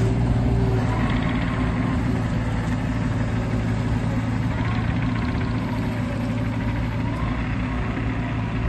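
Kubota U35-3 mini excavator's three-cylinder diesel engine running steadily, with faint short whines rising and falling now and then.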